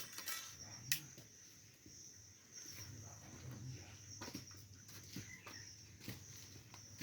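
Faint, steady high-pitched insect chirring, with a few light clicks, the sharpest about a second in.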